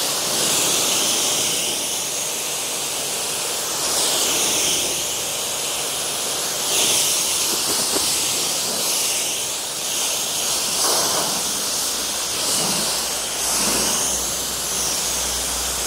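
Water spraying steadily onto a car's paintwork, rinsing off a polymer spray sealant that has been left to bond. The hiss of the spray swells and eases every few seconds as the jet is moved across the panels.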